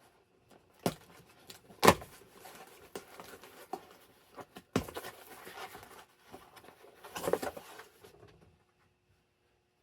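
A mail package being handled and opened by hand: rustling packaging broken by a few sharp knocks, the loudest about two seconds in, with a last burst of rustling near the end before it goes quiet.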